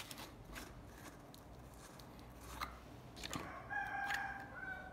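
Faint clicks and light knocks as a plastic jar of acrylic paint is handled and opened. Near the end comes about a second of a steady high-pitched sound with overtones, the loudest thing here, of unclear source.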